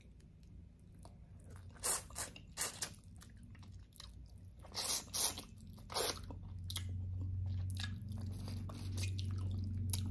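Close-up mouth sounds of eating fish stewed in vinegar with rice by hand: biting and chewing, with a few sharp crunchy bites. A low steady hum runs underneath in the second half.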